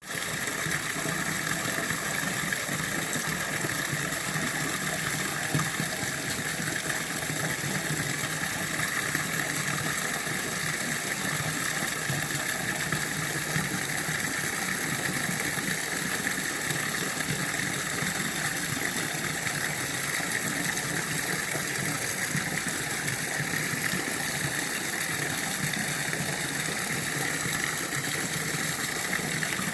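Hot spring waterfall running, a steady rush of falling water with no change in level.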